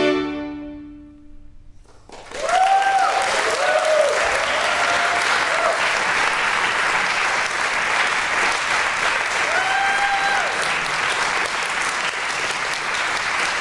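The final chord of a string quartet (two violins, viola and cello) fades away, and about two seconds in the audience bursts into applause that carries on steadily, with a few whoops of cheering.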